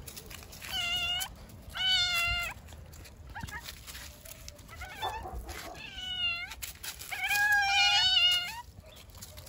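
Kitten meowing: a series of high-pitched meows, the longest and loudest one near the end.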